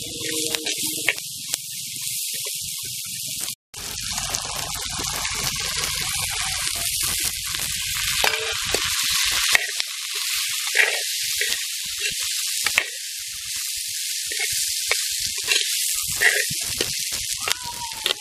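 Chopped onions, green chillies and cowpeas sizzling in hot oil in a clay pot, with a steel ladle scraping and knocking against the pot as they are stirred. The sound cuts out for a moment about four seconds in, then the sizzling resumes.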